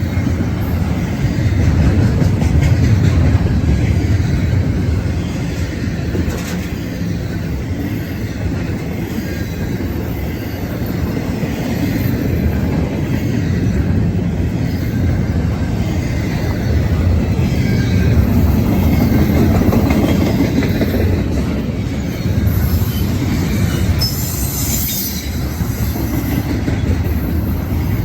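Norfolk Southern freight train rolling past at close range: a continuous loud rumble of steel wheels on the rails, swelling and easing as the cars go by, with clattering over the rail joints.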